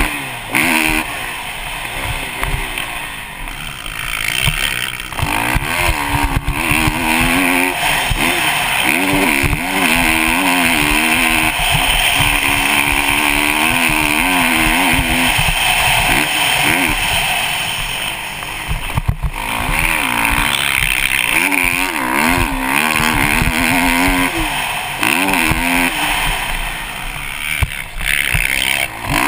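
Kawasaki KX450 four-stroke single-cylinder motocross bike engine being ridden hard, its pitch rising and falling over and over as the throttle is opened and chopped through the track's jumps and corners. A steady rush of wind hits the helmet-mounted microphone.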